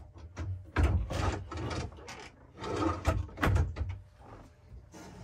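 Wooden closet drawers being slid out and pushed shut, with wooden knocks and scraping in two bursts, about a second in and again about three seconds in.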